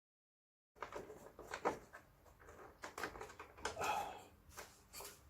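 Dead silence for the first second, then a string of small clicks, knocks and rattles from a screw being undone and the plastic casing of an air-conditioner fan coil unit being handled.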